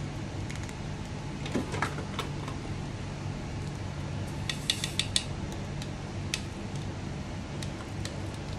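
Light clicks and taps of small clear plastic containers being handled, with a quick rattle of loose resin diamond-painting drills a little after halfway, over a steady low hum.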